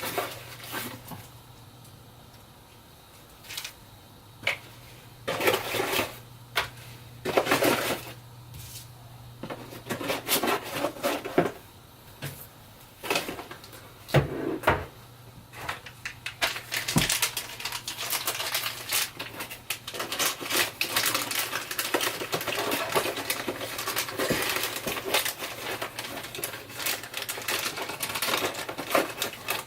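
Hard drive packaging and small parts handled by hand: scattered clicks and knocks, then from about sixteen seconds in a dense, continuous crinkling rustle.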